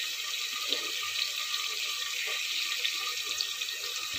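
Sliced onions and garlic cloves sizzling as they fry in hot oil for a tempering: a steady hiss with light crackles.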